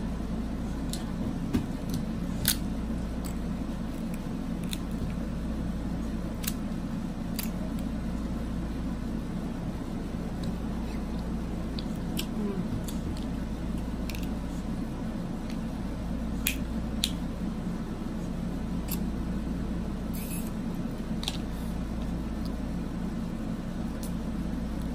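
Crab leg shells being snipped with scissors and cracked open by hand: scattered sharp clicks and cracks, a dozen or so spread out, over a steady low hum.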